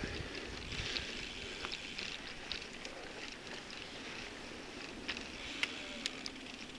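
Cube AMS 120 mountain bike rolling over a muddy dirt trail: steady tyre noise with the bike rattling, and a few sharp clicks and ticks from the bike about five to six seconds in.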